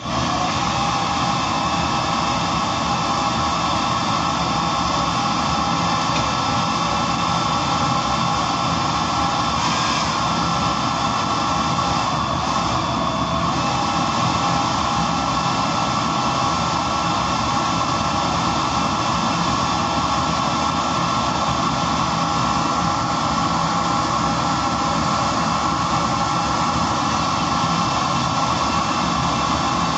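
Small homemade butane-fuelled jet engine lighting at the start and then running steadily, a continuous roar with a fixed whining tone.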